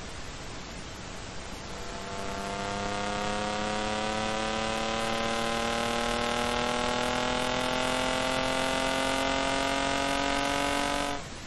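The engine-swapped BMW E28's engine pulling hard in one long gear, its pitch climbing slowly and steadily for about nine seconds over a steady hiss, then cut off abruptly near the end.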